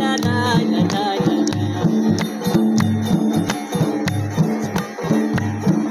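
Live Chitrali folk music: a Chitrali sitar playing a repeating plucked melody over a steady beat on the dol drum, with regular hand claps keeping time.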